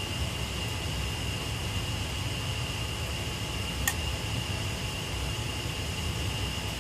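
Gas water heater running after being switched back on: a steady fan-like whir with a constant high whine, and a single sharp click about four seconds in.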